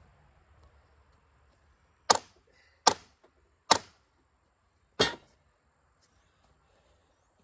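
Four sharp single blows, the first three under a second apart and the last a little over a second later, each dying away quickly.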